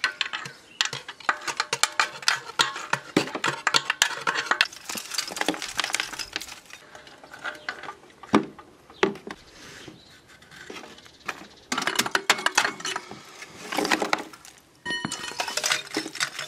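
A screwdriver scraping and prying inside a steel catalytic converter shell, and broken pieces of its ceramic core clinking and rattling as they fall into a plastic bucket. It comes in bursts of dense clicking with a lull in the middle. The converter's core has come apart and was clogging the exhaust.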